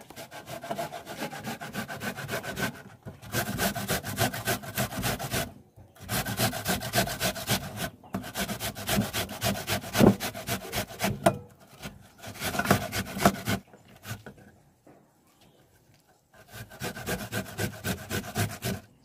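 Onions being grated on a stainless-steel box grater: runs of quick, rhythmic rasping strokes, each run a few seconds long, with short pauses between them and a longer pause about two-thirds of the way through.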